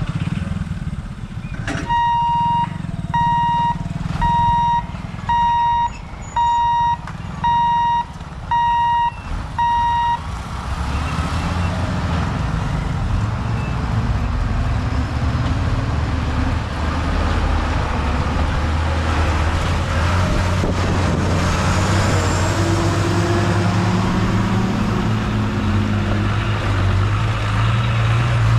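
Level-crossing barrier warning beeper sounding eight times, about once a second, while the lifting barriers go up. It is followed by a loaded lorry's diesel engine running and pulling across the tracks, growing louder toward the end.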